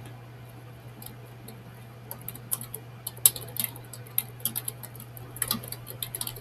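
Typing on a computer keyboard: a run of quick, irregular key clicks starting about two seconds in.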